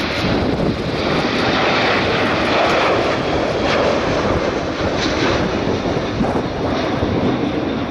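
Military jet taking off, its engine noise loud and steady, building over the first couple of seconds and then holding.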